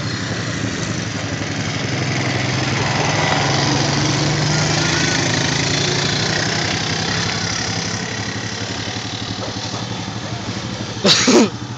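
ATV engine running, swelling louder over the first few seconds and then fading away.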